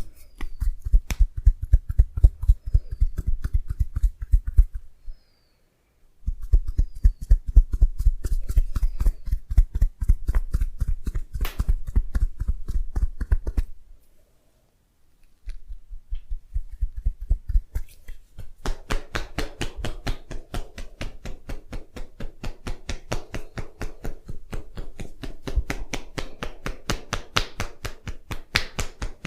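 Fast, even percussive massage strokes, hands striking the body many times a second, in runs that stop twice for a second or so.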